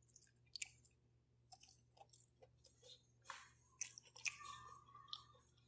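Faint, scattered chewing of rotisserie chicken: small wet clicks and crunches between long quiet gaps.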